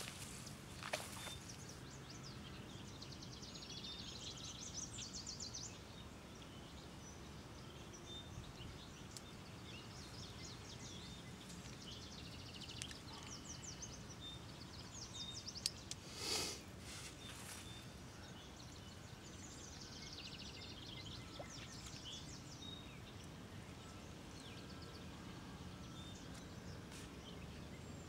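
Birds singing in repeated fast high trills over a steady low outdoor background noise, with one short sharp sound about halfway through.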